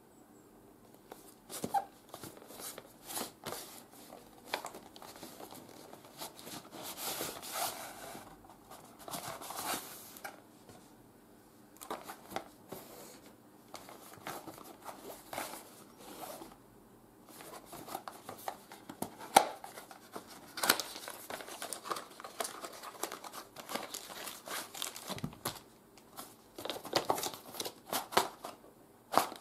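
Hands unboxing a camera: cardboard boxes sliding and tapping, and packaging and plastic accessory bags rustling and crinkling in irregular bursts with sharp clicks. One louder click comes about two-thirds of the way through.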